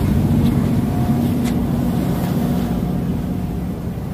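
Temporary generators running with a steady low drone, growing somewhat fainter near the end.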